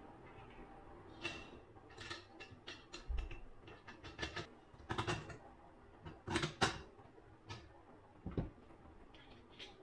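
Hand tools and small parts handled while a 3D-printed plastic rotor is secured on an electric ducted fan's motor shaft: scattered clicks, taps and knocks, loudest around the middle, with a duller knock near the end.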